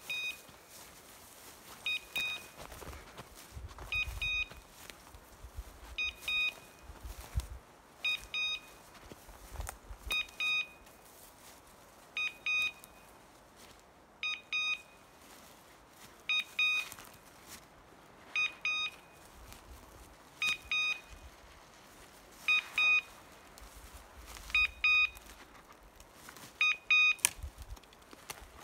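Hunting dog's beeper collar sounding its point signal: a short, high electronic double beep repeated about every two seconds, the sign that the English setter is standing on point.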